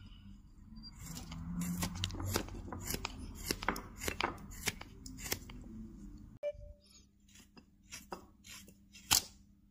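Hand gouge cutting into a small wooden carving: a quick run of short paring strokes, each a crisp scrape as a shaving comes off. About six seconds in the strokes thin out to a few spaced cuts, the sharpest one near the end.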